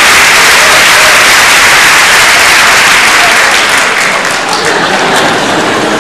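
Audience applauding, loud at first and easing off a little about four seconds in.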